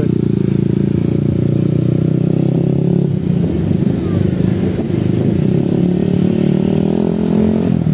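Motorcycle engine running while riding along a road, holding a steady pitch for the first few seconds, then running rougher, and rising in pitch near the end as it speeds up.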